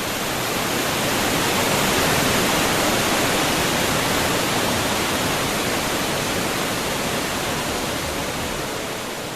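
Iguazu Falls: a dense, steady rush of heavy falling water, with no separate splashes standing out. It swells over the first couple of seconds and then fades slowly toward the end.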